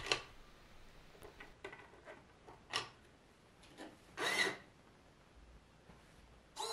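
Light handling sounds as a sugar cube is set into the launcher's rail: faint rubbing and scattered small clicks, with a sharper tick and then a brief louder rustle about four seconds in.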